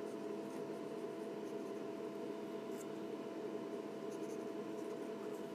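Faint scratching of an ink pen drawing short strokes on paper, over a steady electrical-sounding hum.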